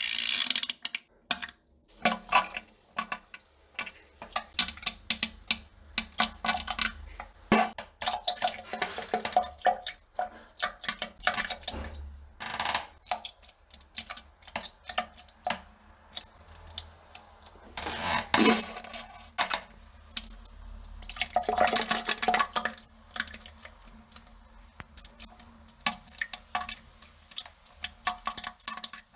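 Defecation into a toilet: a long run of irregular wet crackles, spatters and small splashes in the bowl water, with two longer wet rushes about 18 and 22 seconds in.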